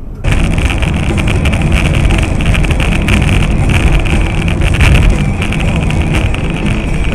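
A moving vehicle's steady running noise with wind buffeting the microphone. It cuts in suddenly a moment in.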